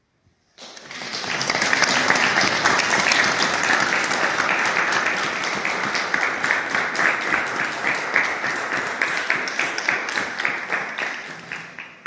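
Audience applauding in a church: dense clapping that starts suddenly about half a second in and tails off near the end.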